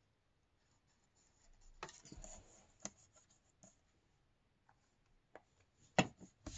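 Faint handling sounds of gluing paper: a squeeze bottle of liquid glue worked along the edge of a torn sheet, with soft rubbing and rustling of paper, a light click, and a sharper knock near the end.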